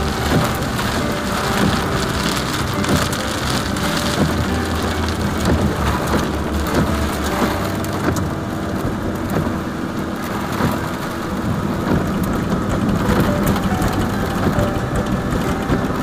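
Heavy rain drumming on a car's roof and windshield, heard from inside the cabin as a dense, steady patter of drops.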